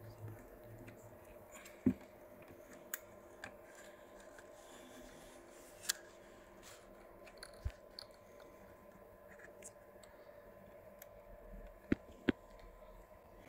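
Scattered sharp clicks and taps of a digital multimeter and its test leads being handled and set down, two in quick succession near the end, over a faint steady hum.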